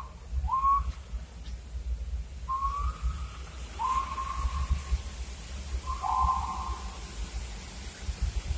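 Whistled notes at about one pitch: a couple of short rising ones, then three longer held notes a second or so apart, over the steady low rumble of the vehicle cab.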